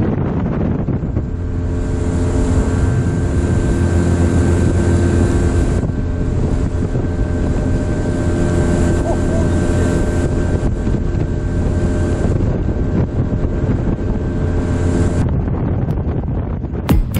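Motorboat engine running steadily at speed across choppy water, with wind buffeting the microphone.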